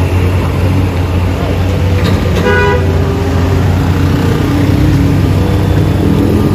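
Road traffic engines running in a steady low drone as cars, motorcycles and a truck work round a steep hairpin bend. A vehicle horn toots once, briefly, about two and a half seconds in.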